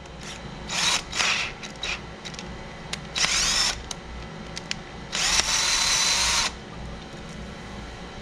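Power drill with a 1/4 inch bit drilling out a stripped exhaust-valve bolt hole in a Polaris RMK 800 snowmobile engine, to take a Heli-Coil thread insert. It runs in short bursts, spinning up with a rising whine, and then in one longer run of about a second and a half.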